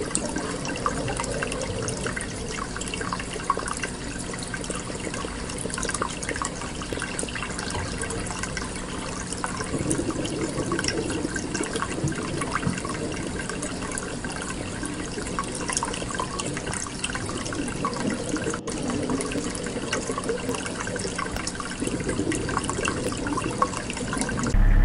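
Running, splashing water: a steady wash with many small ticks and drips.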